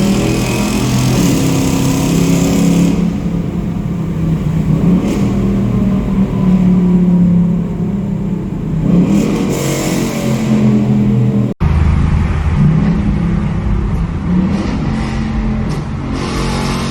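Exhaust of a sixth-generation Ford Mustang GT's naturally aspirated 5.0-litre V8 echoing in a tunnel, the engine note rising and falling with revs and downshifts. There is a momentary break in the sound about eleven and a half seconds in.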